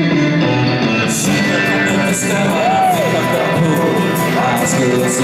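Live acoustic and electric guitars playing a rock song together, with a few bending high notes in the middle. A crisp high tapping rhythm joins in about a second in.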